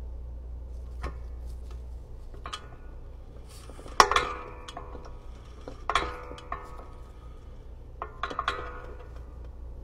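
Glass bottle clinking against the metal nozzle and base of a piston filling machine as it is filled: a few sharp clinks, each ringing briefly, the loudest about four and six seconds in and a quick cluster near the end.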